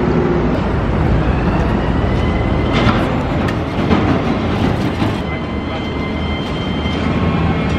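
Busy city street traffic noise: a steady low rumble of passing vehicles with a thin high tone running through it and a few sharp clicks about three to five seconds in.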